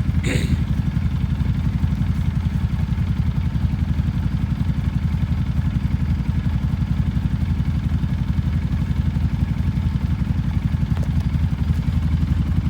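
A small engine running steadily at an even speed with a rapid low putter, ending abruptly.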